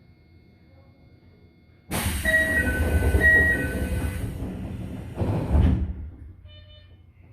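Commuter train standing at a station with a low rumble, then door closing: a sudden air hiss with a two-tone chime sounded twice, a heavy thump as the sliding doors shut about five and a half seconds in, and a short beep near the end.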